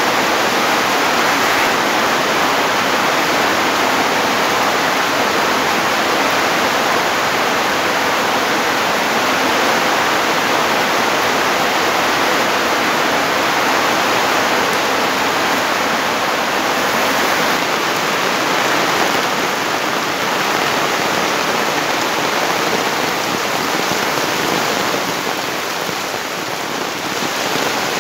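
Heavy rain falling steadily, a loud, dense, even hiss that eases slightly near the end.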